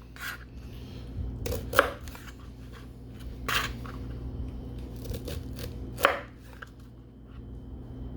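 Knife chopping Brussels sprouts on a cutting board: a handful of sharp, irregularly spaced cuts, with a steady low hum underneath.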